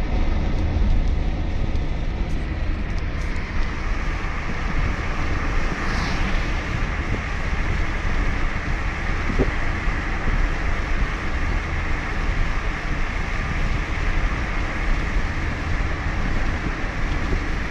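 Steady noise of a car driving on the motorway in a heavy thunderstorm: a deep, constant road-and-engine rumble under a broad hiss of rain spray and wind.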